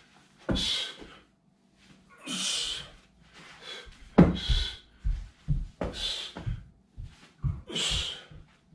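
A man's sharp, forceful exhales every one to two seconds as he drills grappling moves against an imaginary opponent, with dull thuds of bare feet stepping and planting on a carpeted floor, more of them from about halfway through.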